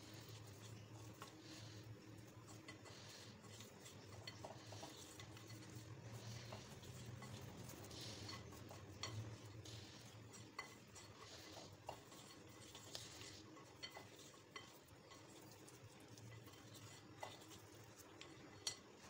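Fingers rubbing oil around the inside of a glass bowl: faint rubbing with scattered light taps and clicks against the glass.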